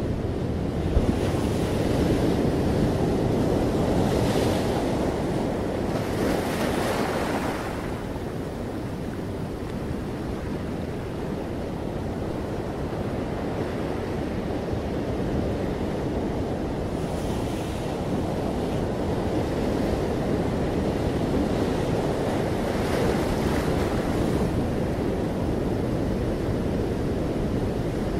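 Ocean surf breaking and washing up over sand and around rocks: a continuous rush that swells into louder hissing surges of foam every several seconds. A brief low thump comes about a second in.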